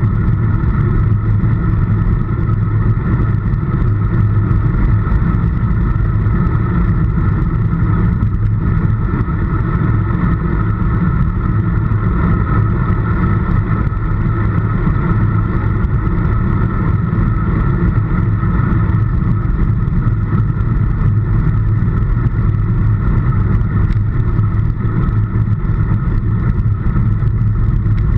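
Steady rush of wind buffeting a bike-mounted action camera's microphone at road-riding speed, with the hum of the road bike's tyres on tarmac.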